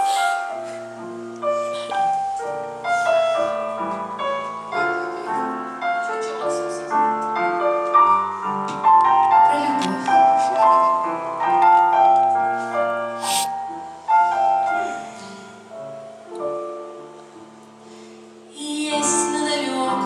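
Piano playing the slow introduction to a song, one note and chord after another. It thins out briefly before a fuller passage near the end.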